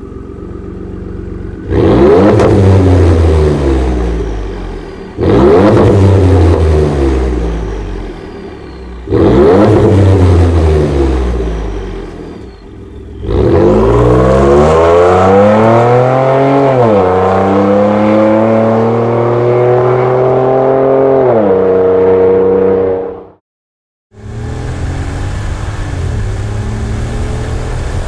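Ford F-150 with a Borla ATAK cat-back exhaust, revved hard three times, each rev falling back toward idle. Then comes a longer pull whose exhaust note climbs, drops once, climbs again and holds before cutting off. About a second later a quieter, steady exhaust note from the truck's stock exhaust begins.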